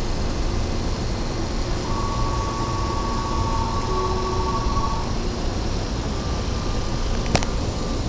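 Tobu 9000 series electric train standing at the platform, its air conditioning and onboard equipment giving a steady rushing noise. A steady two-pitch electronic tone sounds for about three seconds in the middle, and a single sharp click comes near the end.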